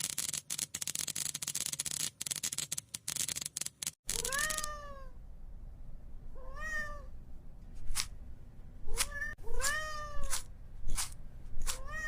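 A domestic cat meowing four times in the second half, each meow a short call that rises and then falls, with a few sharp clicks between them. It is preceded by about four seconds of loud hissing noise broken by brief gaps.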